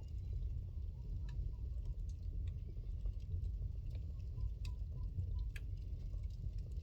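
Wood fire burning in a fireplace: a steady low rumble of the flames with scattered crackles and pops, two sharper snaps a little after the middle.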